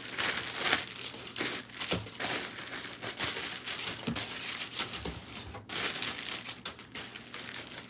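Plastic packaging bags crinkling and clothes rustling as they are handled and rummaged through, in uneven, irregular rustles with no steady rhythm.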